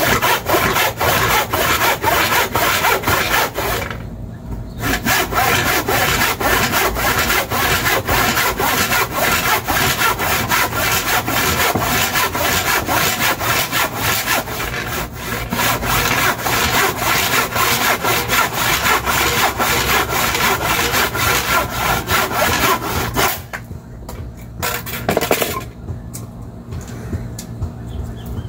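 Handsaw cutting a rough tree-branch table leg to length in quick, steady back-and-forth strokes. The sawing pauses briefly about four seconds in and stops a few seconds before the end, with one short burst of strokes after.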